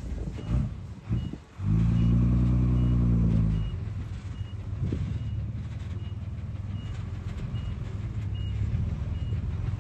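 Bulldozer diesel engine running under load, swelling to a loud, even drone for about two seconds near the start. A high-pitched reversing alarm beeps steadily throughout, about three beeps every two seconds.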